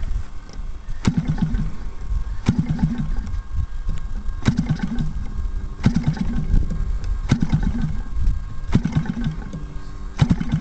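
O.S. GT55 two-stroke gasoline engine on a model aircraft being hand-started by flipping its propeller, about seven flips roughly every second and a half. Each flip gives a sharp click and a brief low churn as the engine turns over without catching.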